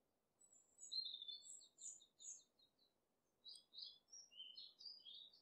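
A small songbird singing: quick, high chirps and trills in two phrases, the second starting about three and a half seconds in.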